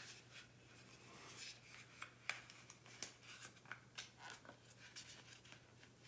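Faint handling sounds: light plastic clicks and rubbing as a phone in a clear case is pushed into a plastic phone-clamp grip, over a faint low steady hum.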